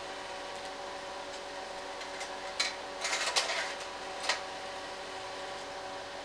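Slide projector's cooling fan humming steadily, with a short clatter of clicks from about two and a half to four and a half seconds in as the slide-change mechanism moves to the next slide.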